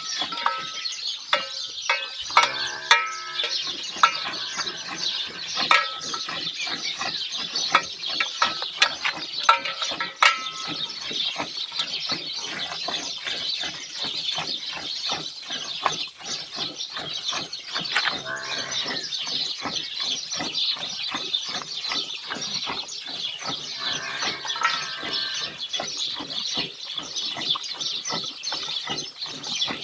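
Cow being milked by hand: milk streams squirting into a steel bucket of frothy milk in a quick, even rhythm of squeezes. Birds chirp and call steadily in the background.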